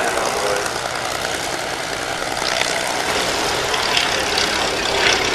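Fairey Swordfish biplane in flight, its Bristol Pegasus nine-cylinder radial engine and propeller running steadily and growing a little louder toward the end as it flies past.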